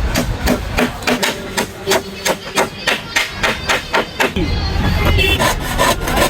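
Rapid, even hammering, about four strikes a second, during hand boat-building. It stops about four seconds in, giving way to a denser, lower sound.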